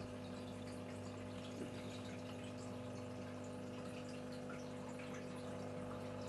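Aquarium equipment running: a steady low hum with light dripping and trickling of water.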